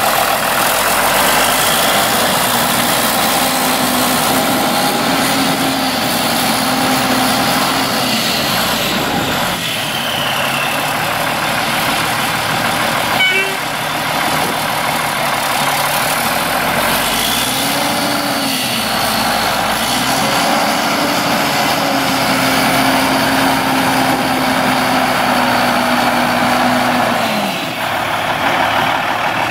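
Cummins 14.0-litre inline-six turbo diesel in a 2000 Sterling A9500 semi truck running, its engine speed rising and falling back several times, with a high whine that follows the revs.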